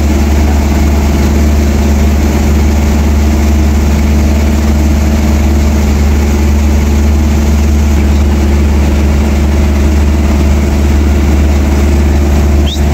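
Heavy diesel engine idling steadily, with a brief high squeak near the end.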